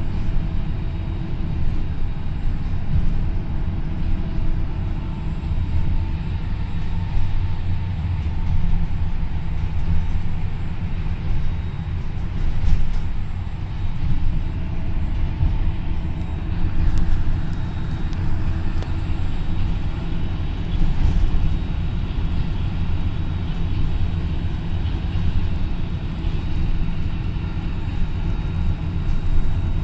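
Steady low rumble of a vehicle in motion, heard from inside the cabin, with a faint steady whine above it.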